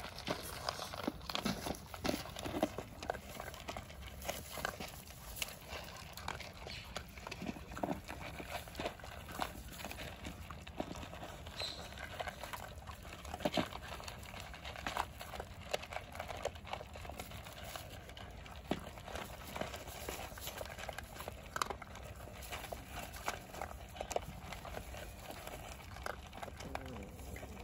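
Dogs and puppies eating from plastic bowls: an irregular run of short chewing and lapping clicks and smacks, with the bowls now and then knocking and scraping on the ground.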